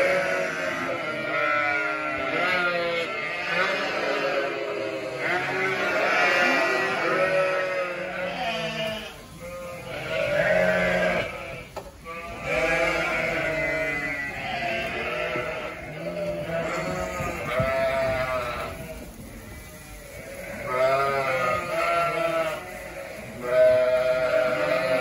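Many young lambs bleating together, overlapping calls with a wavering pitch, with a few brief lulls.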